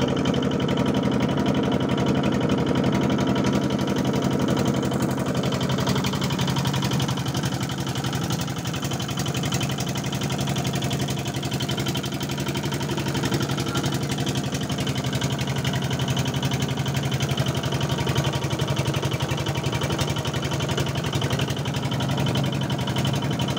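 A boat's engine running steadily underway, a constant low drone that does not change in speed.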